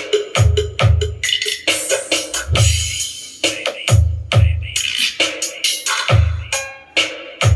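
Music with a drum-machine beat: deep kick-drum thumps and sharp snare and hi-hat hits.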